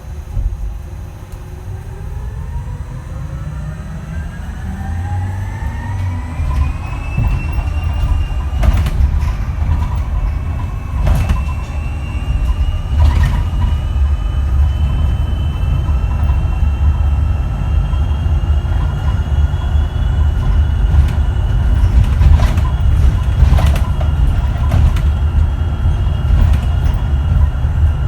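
Electric drive motor whine of a Switch Metrodecker EV double-decker bus (ZF AxTrax AVE axle) as it accelerates. Several tones rise together for about the first eight seconds and then hold nearly steady as it cruises, over a low road rumble with a few knocks and rattles.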